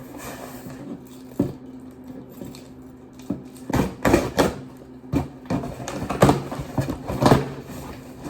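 A delivery box and its packaging being handled: a run of irregular rustling, crackling and scraping in the middle, over a steady low hum.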